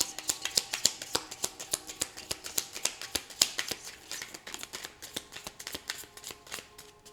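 Tarot deck being shuffled by hand: a rapid run of card clicks, several a second, that thins out and stops shortly before the end.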